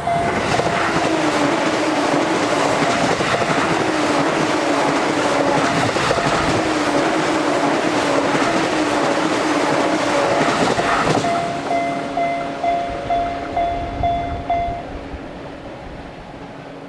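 A train on the JR Sobu Line passes through a Japanese level crossing: loud rushing with wheel clatter starts right at the start and drowns everything for about eleven seconds. The crossing's electronic alarm bell, a 'kan-kan' ringing about twice a second, comes through again once the train has passed, then stops about fifteen seconds in.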